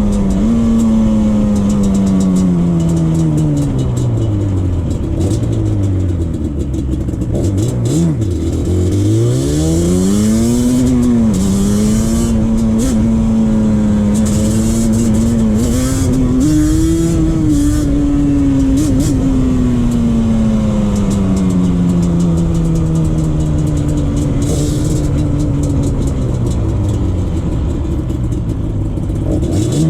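Yamaha Banshee 350's two-stroke parallel-twin engine running under way, its exhaust leak freshly sealed with new clamps. The revs fall off over the first few seconds, climb again about ten seconds in and hold, then ease slowly down before another drop near the end.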